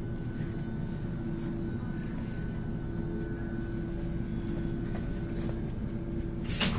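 Athens Metro Line 2 train heard from inside the car as it draws to a stop at a station: a steady low rumble with a held mid-pitched hum. A short sharp hiss comes near the end.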